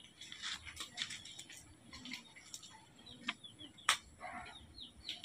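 Small birds chirping in short, high, downward-sliding notes that recur throughout, with a single sharp click about four seconds in.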